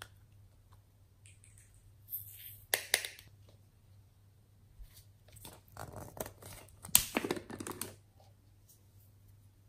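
Small glitter and sprinkle containers being handled: a couple of sharp clicks and scrapes about three seconds in, then a run of rasping clicks from about five to eight seconds as the screw cap is twisted off a small bottle of sprinkles.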